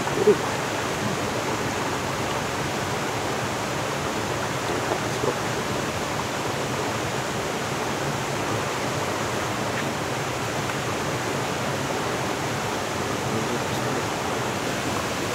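Steady rush of water from a small waterfall pouring into a pool, an even hiss with no breaks.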